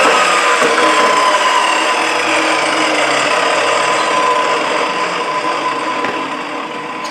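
Table saw coasting down after being switched off, its whine slowly falling in pitch and fading toward the end.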